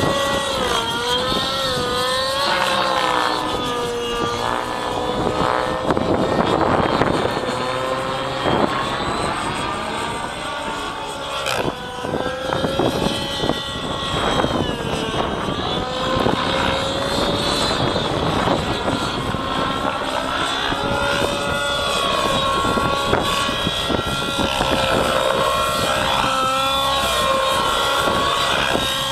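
Align T-Rex 700 nitro RC helicopter in 3D flight: its two-stroke glow engine and spinning rotor blades running, the pitch rising and falling again and again as it manoeuvres.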